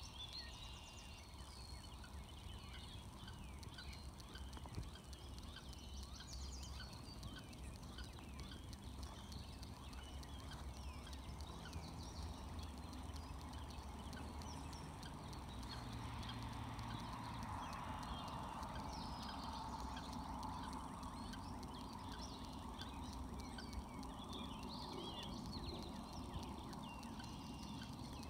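Wood duck ducklings peeping: many short, high peeps scattered all through, over a steady low background rumble.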